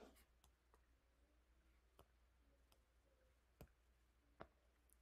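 Near silence with a few faint clicks: a stylus tapping a tablet screen, the two clearest taps in the second half.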